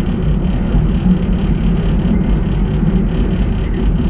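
AnsaldoBreda driverless metro train running through a tunnel on a curve, heard from inside the front car: a steady, loud, deep rumble of wheels on rail and running gear.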